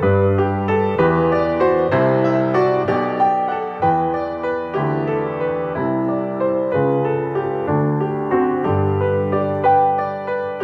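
Solo piano playing a slow postlude, sustained chords and melody notes changing about once a second.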